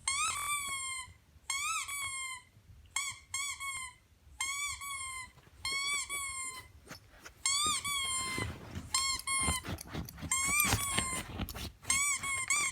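Squeaky-toy sound effect played from an iPad speaker: a rubber squeaky toy squeezed over and over, each squeak rising then falling in pitch, in short groups about every second and a half. From about two-thirds of the way in, knocks and scuffing sounds join the squeaks.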